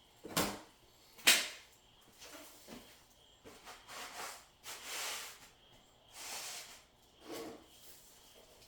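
Unboxing handling noises: two sharp knocks in the first second and a half, then a string of short rustling swishes, like packaging being moved and pulled about.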